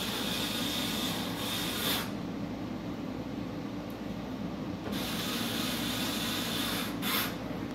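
Cordless electric screwdriver driving screws into the underside of a car's front splitter: two runs of motor whir of about two seconds each, each ending with a brief louder burst.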